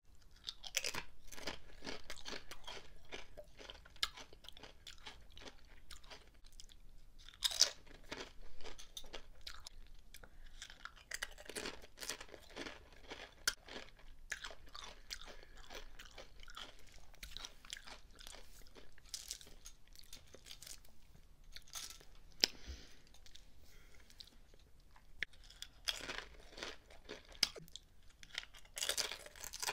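Tortilla chips dipped in guacamole and salsa being bitten and chewed close to the microphone: runs of crisp crunching. The loudest bites come about a quarter of the way in and again near the end.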